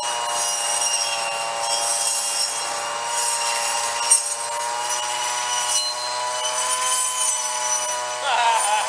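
Snapper commercial brush cutter's two-stroke engine running at high speed, with a steady pitch, while its dull circular saw blade cuts brush; a sharp tick about four seconds in, and the engine's pitch dips and wavers near the end.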